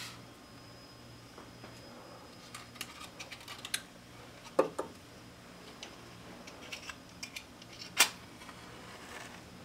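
Scattered small clicks and taps of objects being handled, with one sharp click about eight seconds in, over a faint steady room hum.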